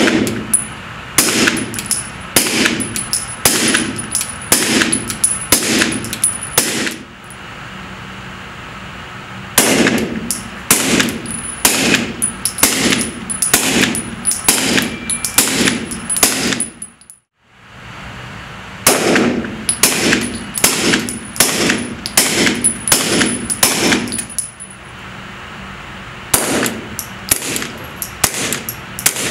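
Suppressed pistols firing strings of shots, roughly one to two shots a second, each a sharp crack with a brief echo. The strings come from a 9mm Glock 17 Gen5 fitted with a CGS MOD9 suppressor, then another suppressed Glock, and near the end a .22 Ruger Mark IV with a CGS Siren suppressor. Short pauses separate the strings.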